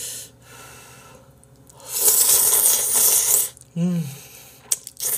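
Two breaths, then a long, loud slurp of Sichuan Jjapagetti instant black-bean noodles sucked into the mouth, starting about two seconds in and lasting about a second and a half. After it comes a short hum that falls in pitch, then a few wet clicks of chewing.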